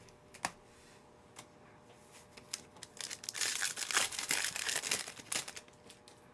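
Trading-card pack wrapper being torn open and crinkled. A few light clicks and taps come first, then about three seconds in there are two and a half seconds of dense crinkling.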